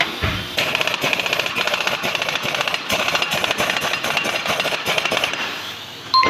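A fast, even mechanical rattle of sharp knocks that starts about half a second in and dies away near the end.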